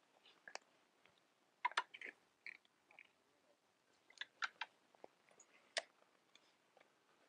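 Faint, scattered clicks and ticks from a fishing rod and spinning reel being handled during a feeder cast. They come in small clusters, one about a second and a half in and another about four seconds in, with a single click near six seconds.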